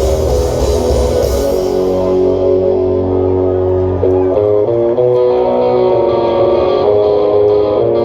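Live rock band playing loudly, led by electric guitars over bass. About two seconds in the drums' high crash drops away, leaving ringing guitar chords that shift to new notes about four seconds in.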